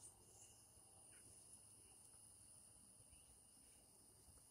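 Near silence, with faint, steady, high-pitched chirring of insects.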